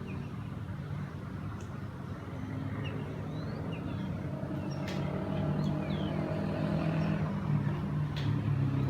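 A motor vehicle engine running and growing louder over the last several seconds, as if approaching. Short bird chirps sound above it.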